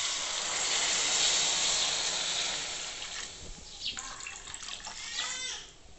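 Water poured into a hot pan of fried vegetables and spice masala, gushing for about three seconds and then fading away.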